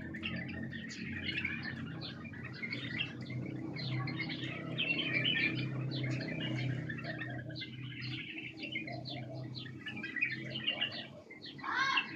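White-cheeked bulbuls chirping and chattering, many short calls overlapping without a break, over a low steady hum. The calls are the kind keepers use to stir an untrained bulbul into calling.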